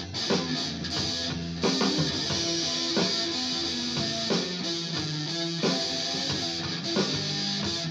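Electric guitar being strummed and picked, a chord struck about every second and a half with shorter notes ringing in between.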